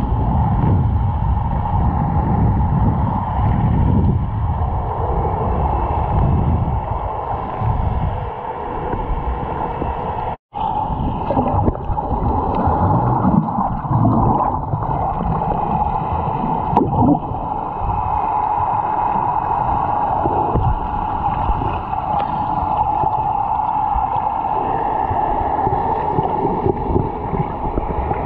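Muffled underwater sound from a camera held just below the surface: water sloshing and gurgling against it, with a steady hum running under it. It cuts out suddenly for a moment about ten seconds in.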